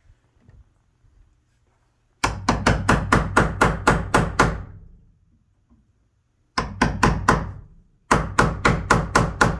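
Hammer tapping a chisel into a wooden door jamb, cutting across the grain. The strikes come quickly, about four a second, in three runs: a long run starting about two seconds in, a short one about two seconds later, and another from about a second after that.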